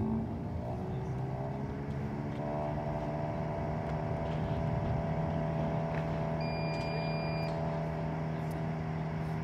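Slinger Bag tennis ball machine's launcher motor whirring, rising in pitch over the first couple of seconds as it spins up, then running at a steady hum.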